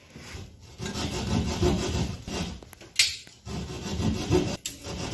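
Hand blade sawing at the edge of a round cutout in a gypsum board ceiling, in quick repeated back-and-forth strokes, enlarging the hole so a downlight will fit. The strokes begin about a second in, with a short break and a sharp click about three seconds in.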